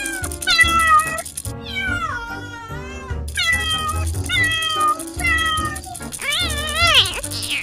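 Kittens meowing over and over in high, sliding calls, one long wavering meow near the middle, over background music.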